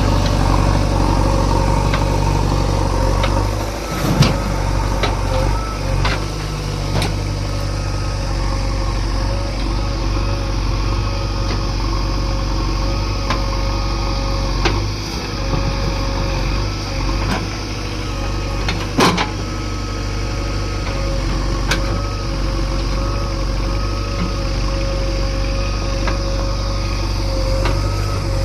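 Heavy diesel engine of earth-moving machinery running steadily, with a wavering whine over it and a few sharp knocks, the loudest about four seconds and about nineteen seconds in.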